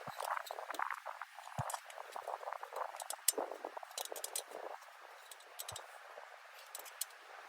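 Irregular light metallic clicks and scrapes of hand tools and engine parts being handled while the intake of a Yamaha Blaster 200 is put back together; busiest in the first few seconds, then sparser.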